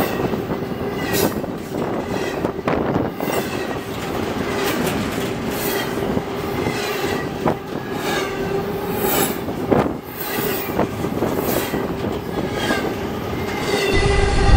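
Double-stack intermodal container cars of a freight train rolling past close by: wheels clacking over the rail joints at irregular intervals, with a steady wheel squeal running underneath. Near the end it becomes a lower, more distant rumble of the train.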